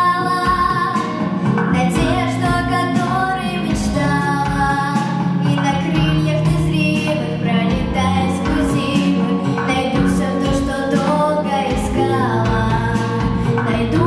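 A girl singing a pop song into a microphone over instrumental accompaniment.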